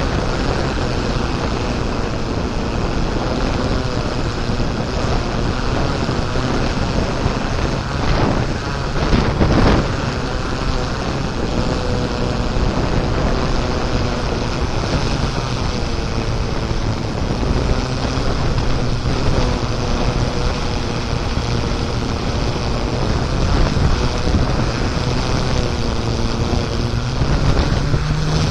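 Off-road vehicle driving, its engine running steadily under heavy wind noise on the microphone, with a louder rough patch about nine seconds in.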